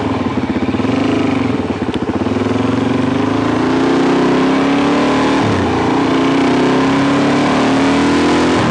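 2005 Suzuki DRZ400SM's single-cylinder four-stroke engine pulling hard as the motorcycle accelerates. Its note climbs steadily, dips briefly about five and a half seconds in, then climbs again.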